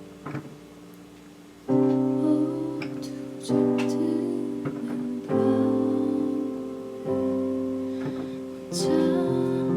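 Piano chords played slowly: a chord is struck about every two seconds and left to ring and fade, five in all, the first coming in near two seconds after a quiet stretch.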